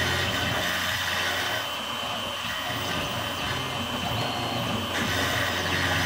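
Tormach PCNC 770 CNC mill's spindle running with an end mill cutting into a wooden block: a steady whine under a hissing cutting noise. The cutting noise eases off a little under two seconds in and grows again about five seconds in.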